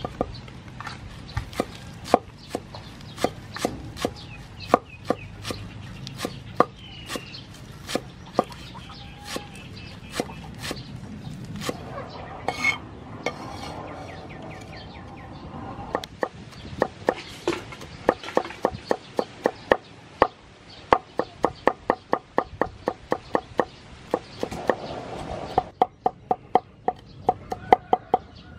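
Steel cleaver chopping green onions, then garlic, on a wooden cutting board. The sharp knocks come singly and spaced out at first, then in a fast, even run of about three to four strokes a second through the second half.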